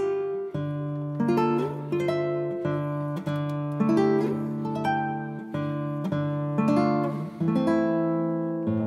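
Background instrumental music played on plucked strings: single notes strike and ring away over held bass notes.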